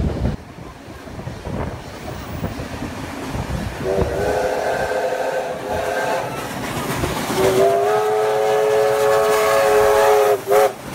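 Steam locomotive whistle sounding two long blasts of about three seconds each, then a short toot near the end, over the rumble of the train running.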